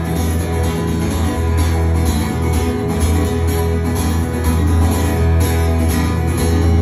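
Amplified acoustic guitar strummed in a steady rhythm, an instrumental passage with no singing.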